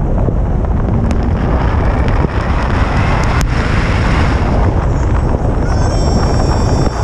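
Wind buffeting the microphone of a camera mounted outside a moving Honda Civic, a loud, steady low rumble mixed with the car's road noise as it drives along a snowy road.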